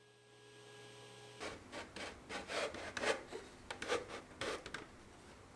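Walnut divider being slid into its snug stop dado in the cabinet side, wood rubbing and scraping against wood in a run of short irregular strokes that start about a second and a half in.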